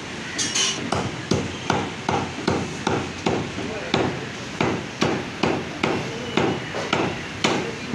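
A heavy butcher's cleaver chopping mutton on a round wooden chopping block, in a steady run of chops about two and a half a second, starting about a second in.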